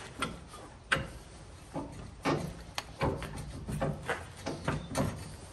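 Irregular knocks, clunks and scrapes as a rusted rear knuckle, hub and brake rotor assembly is handled and shifted by hand, the sharpest knock about a second in.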